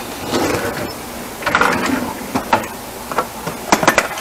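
Metal kitchen utensils clattering and clinking as someone rummages through a crowded utensil drawer, with a cluster of sharper clinks near the end.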